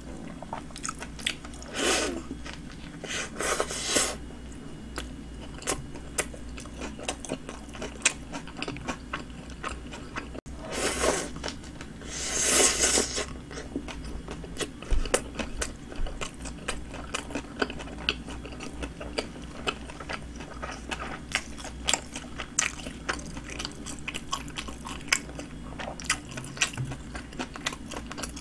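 Close-up eating sounds of a Subway flatbread sandwich being bitten and chewed: many small wet mouth clicks throughout, with a few louder, noisier bursts, the loudest about halfway through.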